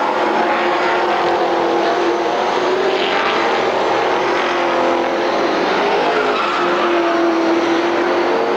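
A pack of stock race cars running at speed around an oval track, their engines a loud, steady, overlapping drone with no let-up.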